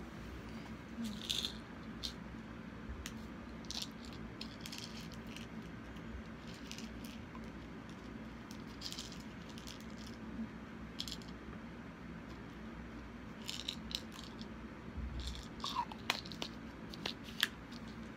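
Scattered rustles and short clicks of a person moving right beside the microphone, over a steady low hum; the clicks come thicker near the end.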